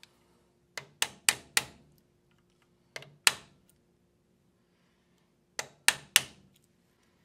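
Hammer tapping a non-marring punch to drive an XS Big Dot front night sight sideways into the dovetail of a SIG P320 slide: sharp metallic taps in three short runs, four, then two, then three.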